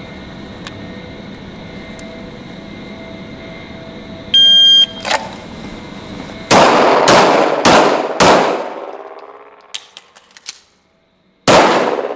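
A shot timer's electronic start beep, then five 9mm pistol shots from a Glock 17: four about half a second apart, then a fifth after a pause of about three seconds. Each shot rings on in the echo of the indoor range.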